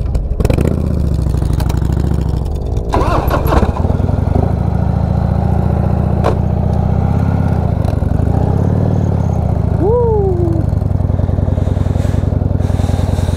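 Motorcycle engine running under way, heard from the bike, its note rising and falling a little with the throttle. About ten seconds in, a short high call rises and then falls in pitch over it.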